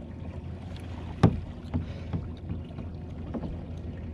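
Steady low rumble of wind on the microphone and water around a kayak, with one sharp knock a little over a second in and a few fainter knocks after it.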